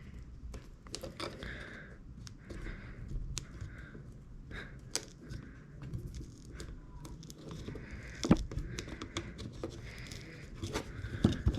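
Small clicks, scrapes and tearing of an iPhone 6s battery being pried and peeled off its alcohol-softened adhesive strips with a spudger. The sharpest click comes about eight seconds in.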